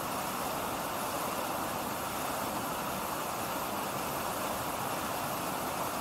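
River waterfall in heavy flow, pouring over rock ledges: a steady, unbroken rush of water.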